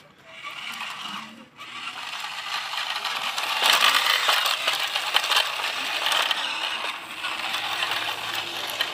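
Plastic toy wheel loader rattling and scraping as it drives across dirt and dry twigs: a dense run of small clicks and clatter that gets louder about three and a half seconds in.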